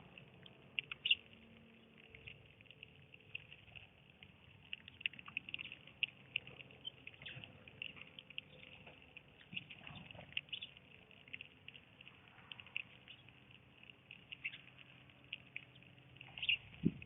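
Small birds chirping: many short, high peeps in quick, irregular succession, a little louder about a second in and again near the end.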